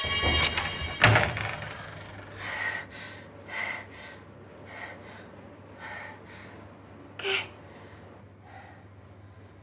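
A single loud bang about a second in, then a person's gasping breaths, roughly one a second, growing fainter.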